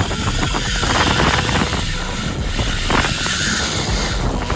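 Steady wind rumble buffeting the microphone, with sea and boat noise, on a small boat at sea.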